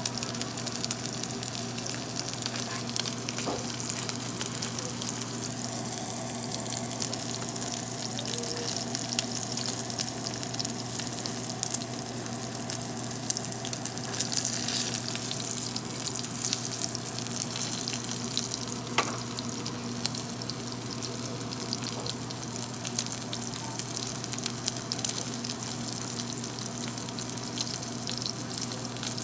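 Japanese A5 wagyu striploin sizzling in hot rendered fat in a cast-iron skillet, a steady frying hiss full of fine crackles, with an occasional sharper click.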